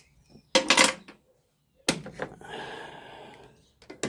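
Metal clanks and clicks from workshop hardware being handled, with a short scraping sound in the second half.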